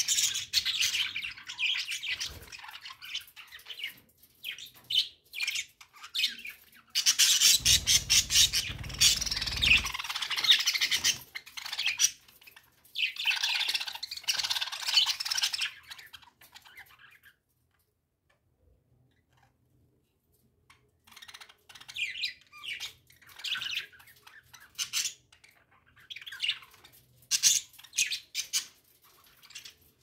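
A flock of budgerigars chattering, with constant overlapping warbles, chirps and squawks. About seven to ten seconds in, a louder stretch carries a low rumble. The flock falls silent for a few seconds past the middle, then resumes more sparsely.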